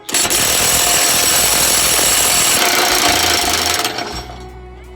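A power tool runs hard on a rusted box-mount bolt on the truck frame for about four seconds, then winds down.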